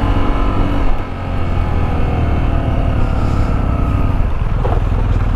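Motorcycle engine running at a steady speed while riding a dirt track, with a brief dip in loudness about a second in, over a heavy low rumble.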